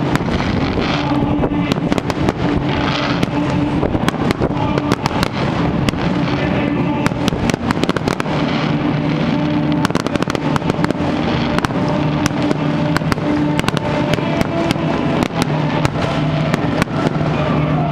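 Fireworks bursting and crackling in rapid, irregular succession over a steady low drone.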